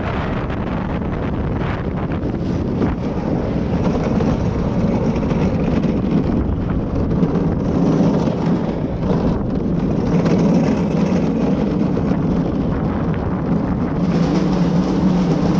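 Luge cart running down the concrete track: a steady rolling rumble of the wheels with wind rushing over the microphone, growing a little louder over the run.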